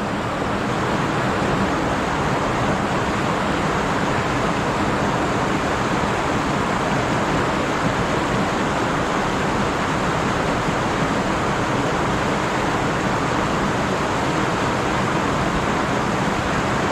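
Stream water flowing, a steady even noise.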